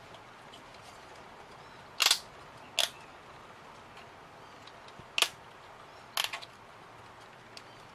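Four sharp clicks of 3 mm laser-cut MDF pieces being pressed hard into their slots on a model car body.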